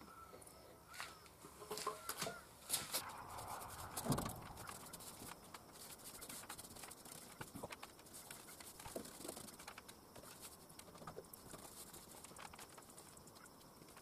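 Paintbrush working paint onto a corrugated steel ceiling: irregular light taps and brushing strokes against the metal, with a few sharper knocks a few seconds in. A few faint chirps sound in the first couple of seconds.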